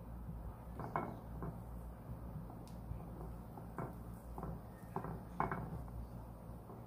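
Wooden spatula clicking and scraping against a ceramic bowl and plate as chocolate spread is scooped and spread over a crepe: a scattering of light knocks and clicks over a steady low hum.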